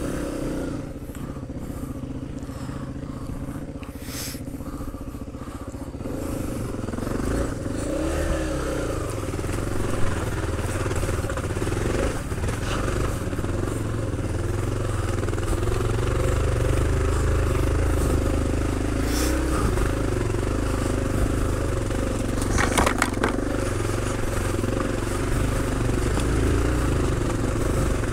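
Yamaha trail bike's single-cylinder four-stroke engine running at low speed along a rough lane, revs rising and falling, heard from the rider's helmet. It gets louder about six seconds in, and a few sharp knocks cut through it.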